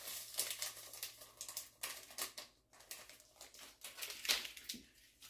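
A small paper packet of vanillin sugar crinkling and rustling as it is shaken out into a plastic mixing bowl: a quick run of faint crackles, with a louder cluster about four seconds in.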